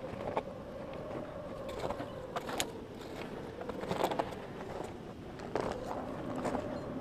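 Irregular sharp creaks and clicks over a steady, slightly wavering hum.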